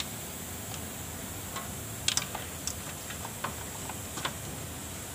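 Scattered light clicks and taps as a plastic radiator cooling fan is fitted by hand onto its electric fan motor, the sharpest about two seconds in, over a low steady hiss.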